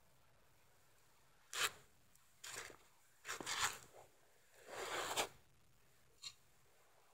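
Short scraping and rubbing noises from handling right at the microphone while a glass jar is moved about, about five separate scrapes with quiet in between.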